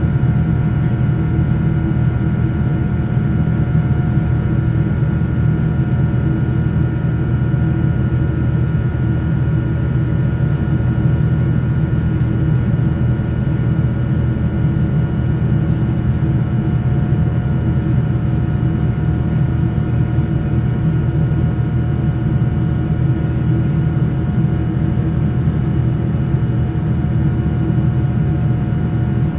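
Boeing 787-10's General Electric GEnx turbofan engines heard from inside the cabin: a steady low drone with a few thin steady tones above it, unchanging throughout.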